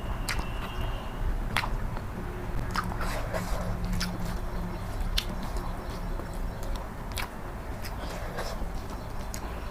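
Close-miked chewing of egg curry, with irregular sharp wet mouth clicks over a steady low hum.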